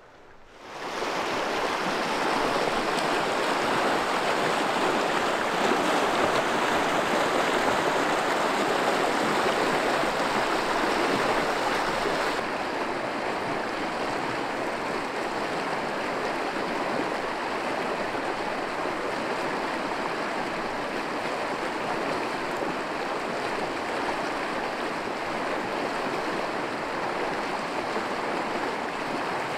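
A river flowing, a steady, dense rushing of water. It starts abruptly about half a second in and drops a little in level about twelve seconds in.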